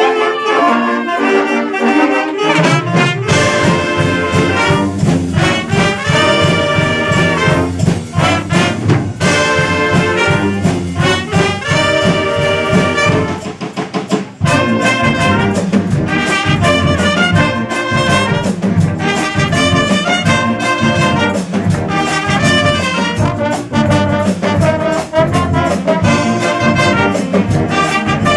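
Guggenmusik carnival band playing loudly on trumpets, saxophones and sousaphone. The low brass comes in about three seconds in, and there is a short break about halfway through before the full band plays on.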